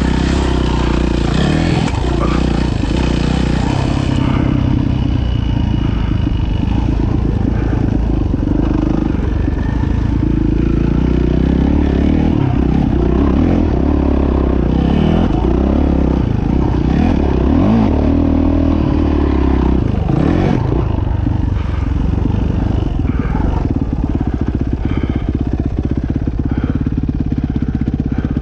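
Dirt bike engine being ridden, revving up and down again and again as the throttle opens and closes, then running more steadily near the end.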